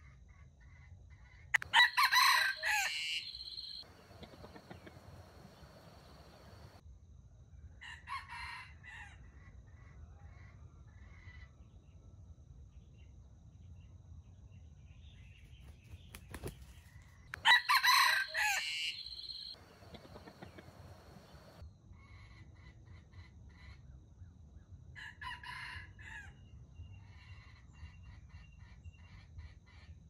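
Rooster crowing twice, about fifteen seconds apart. Each crow is loud and lasts about two seconds. Fainter crows come in between and near the end, and small birds call in the last few seconds.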